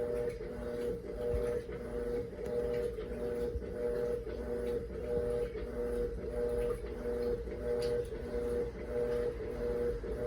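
Electrolux Turbo Economia top-loading washing machine agitating a load: the motor hum cuts in and out in an even rhythm, about three pulses every two seconds, as the agitator swings back and forth.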